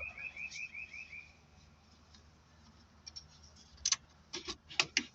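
A rapid high beeping, about six short beeps a second, fading out within the first second and a half. From about four seconds in come several sharp plastic clicks and knocks as the Jaguar XK's radio head unit and its trim are handled.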